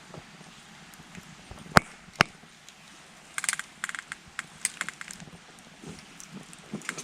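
Wood campfire crackling, with two sharp, loud pops about two seconds in, then a run of quicker, fainter crackles.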